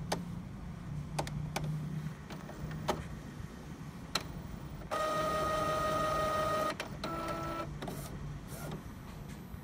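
Epson Stylus Photo T60 inkjet printer's mechanism working after power-on: a few light clicks over a low hum, then about five seconds in its motor whines steadily for nearly two seconds, followed by a shorter whine at a different pitch.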